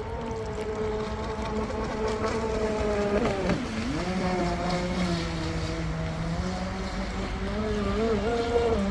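Brushless electric RC speedboat running on a 6S lithium-polymer pack: a steady motor whine whose pitch dips sharply and climbs back about three and a half seconds in, then wavers near the end, over low wind rumble.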